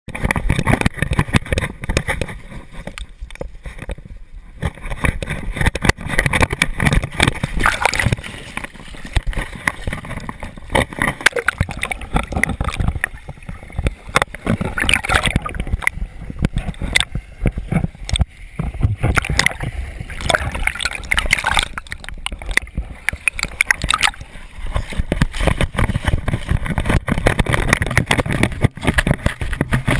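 Water splashing and sloshing as a dog wades and runs through shallow water, heard from a camera strapped to the dog. Irregular knocks and rubbing of the jostled camera mount against the wet fur run throughout.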